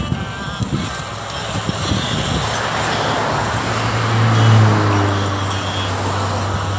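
A motor vehicle passing on the road: a low engine drone and tyre hiss that swell to a peak about halfway through, then ease off. A few dull knocks of a hoe blade working loose soil in the first two seconds.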